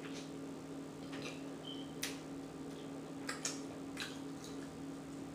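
Close-up chewing and lip smacking while eating a slider: scattered short, wet mouth clicks over a faint steady hum.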